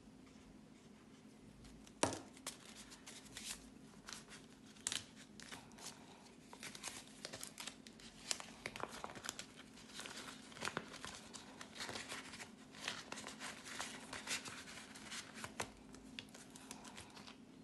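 Paper banknotes and clear plastic cash envelopes being handled, crinkling and rustling in irregular crackles, with a sharp snap about two seconds in.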